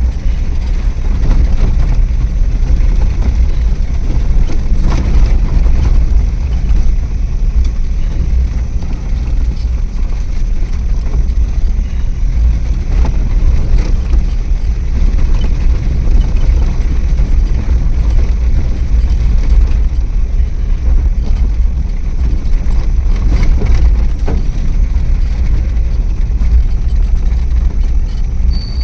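A car driving: a steady low engine and road rumble.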